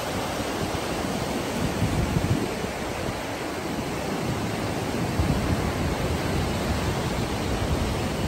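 Mountain river rapids rushing over boulders: a steady roar of white water, with uneven low rumbles of wind on the microphone.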